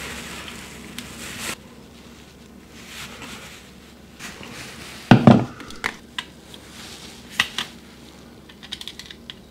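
Hand-tool handling noise while cable ends are worked with pliers at a wall socket box: a rustle at first, one dull thump about five seconds in, then scattered small metallic clicks.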